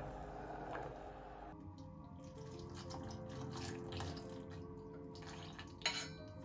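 A wooden spoon stirs sugar syrup in a steel saucepan, then hot syrup is poured onto fresh lilac blossoms in a glass bowl, trickling and splashing. Soft music plays under the pour, and there is a sharp clink near the end.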